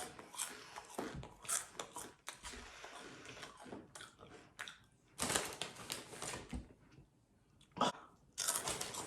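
Close-up loud chewing and crunching of crunchy spicy Cheetos, in irregular bursts with short pauses between mouthfuls.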